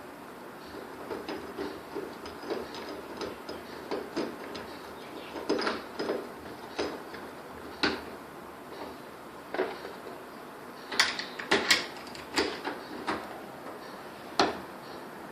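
Irregular small metallic clicks and knocks from a screwdriver and doorknob hardware as screws are driven into a new doorknob. A few sharper clicks come in a cluster about two thirds of the way through and once more near the end.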